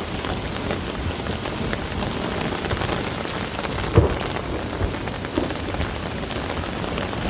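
Heavy rain pouring down and splattering on surfaces during a thunderstorm, a dense, steady patter of drops, with one sharp knock about four seconds in.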